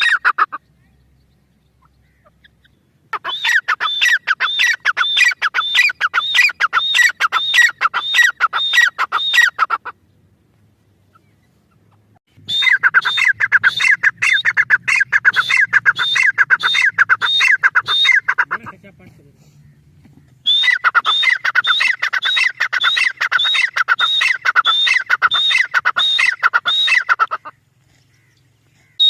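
Irani teetar partridge calling: three long bouts of loud, rapidly repeated sharp notes, about two or three a second, separated by short pauses.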